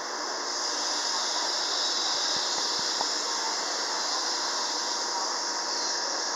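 MBTA Blue Line subway train of Siemens-built cars at an underground station platform, giving a steady high hiss with a faint steady whine under it.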